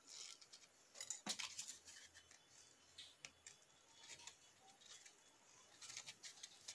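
Very faint scattered clicks and rustles of fingers handling EVA foam petals, pressing a glued petal into place, the strongest about a second in; otherwise near silence.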